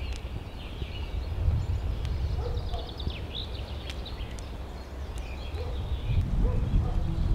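Birds chirping and calling in short scattered notes over a steady low rumble of wind noise.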